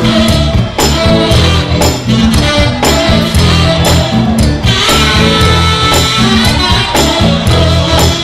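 Music with a steady beat and strong bass.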